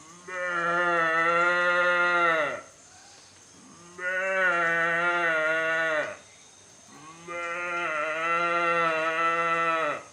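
A man imitating the moo of a thirsty adult cow with his voice: three long, steady lows with short gaps between them, each dropping in pitch as it ends.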